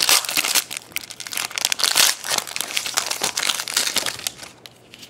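The wrapper of a 2011 Prestige football card pack being opened and crinkled by hand: a dense run of crackles that dies down about four seconds in.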